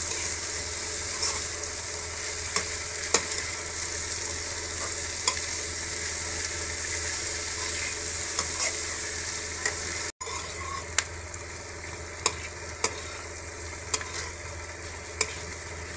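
Chopped vegetables (capsicum, green chilli, beans, carrot and onion) sizzling as they sauté in oil in a metal kadai, stirred with a spatula that scrapes and taps against the pan now and then. The sound drops out briefly about ten seconds in and comes back a little quieter.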